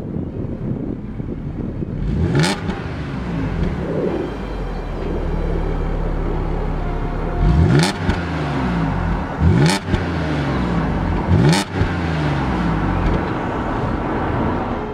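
Audi S5 Sportback's supercharged 3.0-litre V6 idling at the quad exhaust tips and revved four times. There is one rev about two seconds in, then three short sharp blips about two seconds apart in the second half, each rising quickly and falling back to idle.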